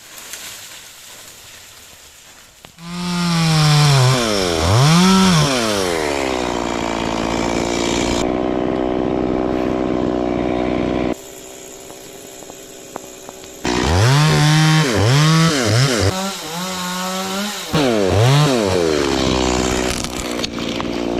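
Stihl two-stroke chainsaw starting up and running, its engine note swooping up and down as the throttle is blipped, settling into a steady high run. It drops back about halfway through, then is revved in several quick bursts again before running steadily.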